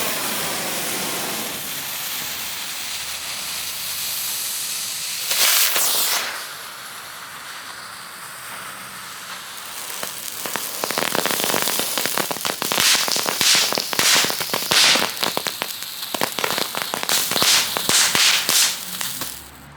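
Novelty tank firework going off: a steady hissing spray, a brief louder burst about five seconds in, then from about ten seconds a dense run of sharp crackles and bangs, a bit louder than expected, that stops just before the end.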